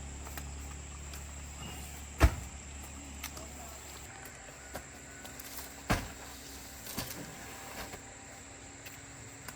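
A low engine rumble that fades away about four seconds in, with one sharp, loud knock about two seconds in and two lighter knocks later.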